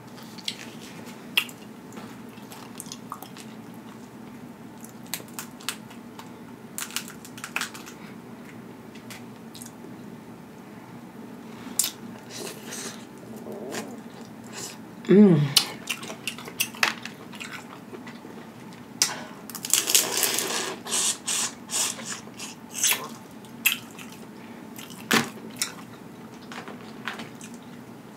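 Close-up eating of boiled crawfish: shells cracking and snapping, with wet sucking and slurping of the heads and juice. About halfway there is a short squeak falling in pitch, the loudest moment, and a few seconds later a longer hissing slurp.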